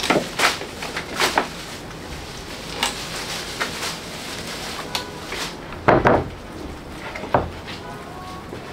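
Irregular knocks and clatters of objects being handled, a string of separate hits with the heaviest, deepest one about six seconds in.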